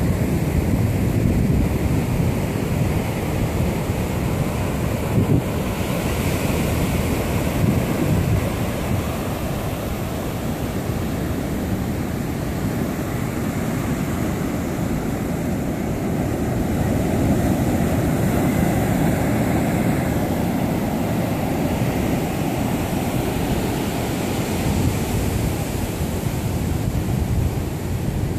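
Ocean surf breaking and washing up a sandy beach, a steady rushing noise that swells and eases, with wind buffeting the microphone.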